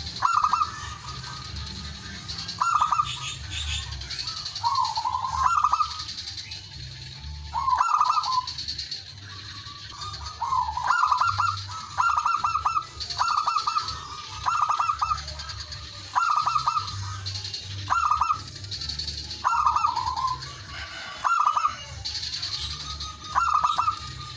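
Male zebra dove (perkutut) cooing: short, staccato coo phrases repeated about once every second or two, sometimes in quick runs. This is a male's call to rival birds.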